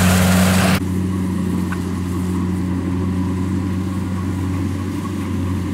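Kubota combine harvester running with a steady low engine hum. A loud rushing noise over the hum stops suddenly under a second in, and the hum carries on alone.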